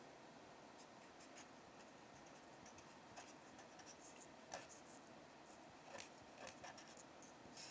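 Black marker writing on paper: faint, short scratching strokes every second or so as letters are written, over near silence.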